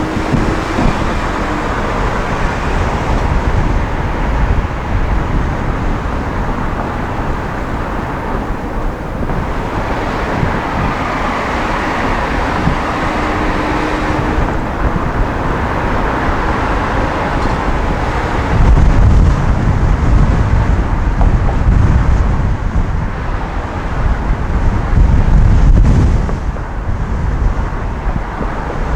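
Wind and road noise at a roof-mounted camera on a moving van: a steady rush of air and tyres, broken twice in the second half by heavy low buffeting of wind on the microphone.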